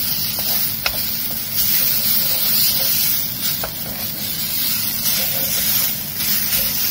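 Fresh coriander leaves sizzling in a kadai as they are stirred with a wooden spatula, their moisture cooking off, with a few light knocks of the spatula on the pan.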